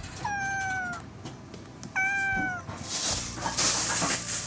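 A cat meows twice, two short calls about a second and a half apart, each sliding slightly down in pitch. Then comes a louder stretch of hissing noise.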